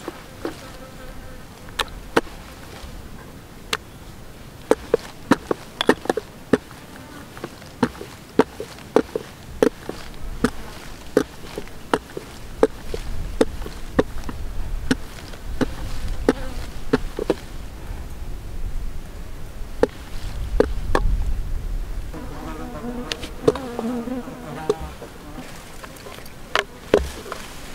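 A flying insect, a fly or bee, buzzing with a wavering drone. It is loudest for about three seconds near the end. Irregular sharp clicks sound throughout, about one or two a second at their busiest.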